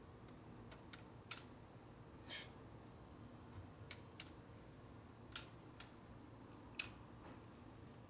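Faint, scattered metallic clicks and ticks of a small tool poking at a loose screw in a tight spot on a motorcycle engine, about eight in all, with one short scrape a little past two seconds in.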